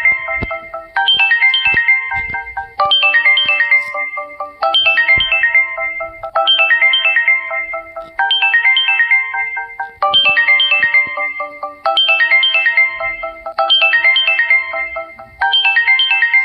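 Phone ringtone: a short melody of bright electronic notes over a low held note, looping about every two seconds.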